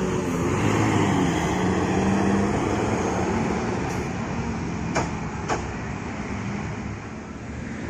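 Diesel engine of a Sudiro Tungga Jaya intercity coach pulling away, its engine and road noise fading steadily as it leaves, over passing road traffic. Two short sharp clicks about five seconds in.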